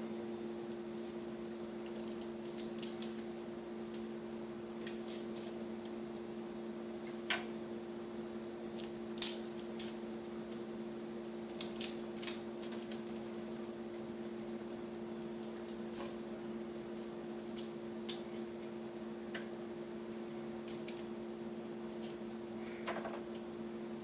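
Irregular clicks and taps of kitchen utensils and ingredients being handled during food preparation, a few sharper knocks among them, over a steady electrical hum.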